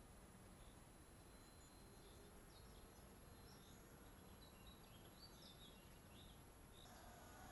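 Near silence: faint open-air background with a few faint high bird chirps. The distant electric motor and propeller of a model plane hum faintly at the start, then grow louder in the last half second as the plane comes back, the pitch falling.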